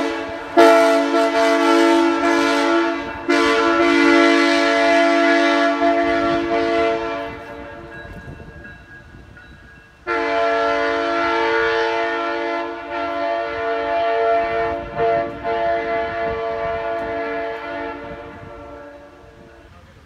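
Nathan Airchime K3HA three-chime locomotive air horn sounding its chord in long blasts: a short break about three seconds in, a trailing fade after about seven seconds, then a fresh blast about ten seconds in that fades out near the end.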